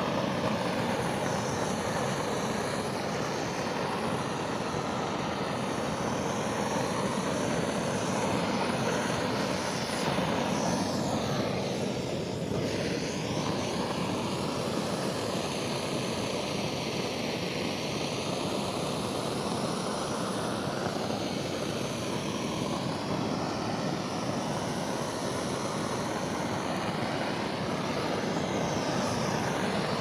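Handheld brass LPG gas torch burning with a steady, unbroken hiss of gas and flame, its tone shifting a little now and then.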